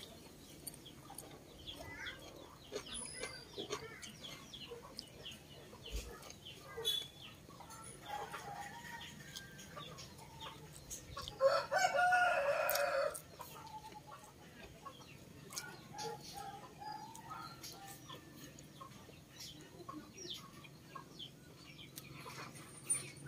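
A rooster crows once, about halfway through, a call lasting under two seconds and the loudest sound here. Chickens cluck now and then, over faint clicking chewing and mouth sounds.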